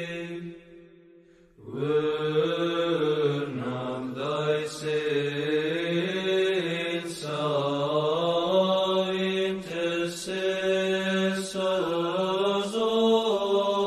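Liturgical chant: voices singing a slow, drawn-out melody over a steady held drone note. It breaks off briefly near the start, then goes on.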